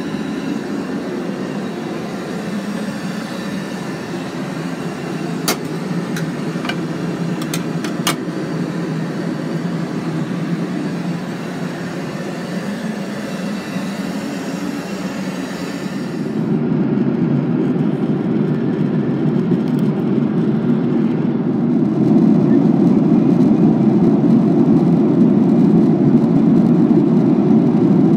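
Steady in-flight cabin noise of a Boeing 737-800, a mix of engine and airflow noise, heard first inside the lavatory with a few sharp clicks about five to eight seconds in. About halfway through the noise turns louder and lower in the passenger cabin by the wing, and it grows louder again near the end.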